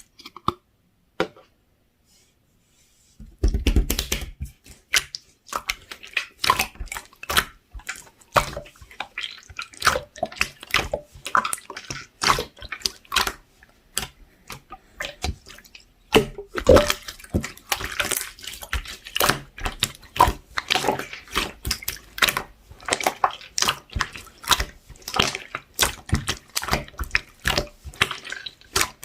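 Clear slime being squished and worked by hand, giving a quick, irregular run of wet clicks and pops. After a few soft clicks it gets going about three seconds in.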